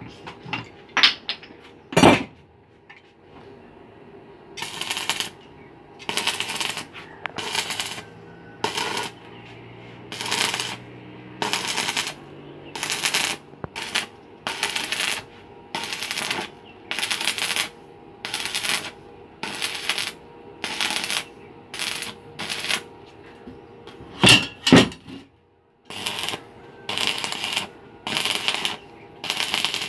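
Electric stick welding: the arc crackles and sizzles in short bursts, about one a second. There are a few sharp metal knocks near the start and about three-quarters of the way through.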